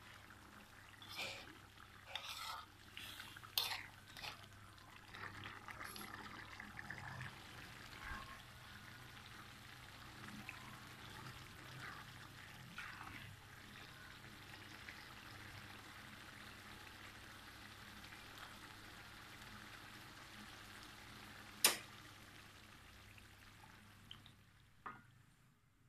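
Chilli sambal simmering faintly in a wok while a utensil stirs and scrapes through it, with several clinks against the pan in the first few seconds and one sharp clink about 22 seconds in.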